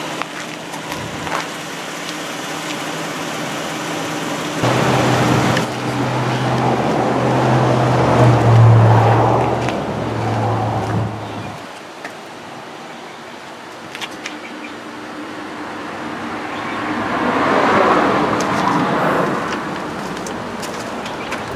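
Motor vehicles driving past, twice: the first comes in suddenly about five seconds in with a steady low engine hum that lasts several seconds; the second swells up and fades away near the end.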